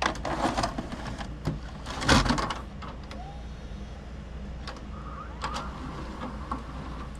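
VCR taking in a VHS cassette: clicks and knocks as the tape is handled and pushed in, the loudest a thump about two seconds in, then the loading mechanism's motor running with small clicks.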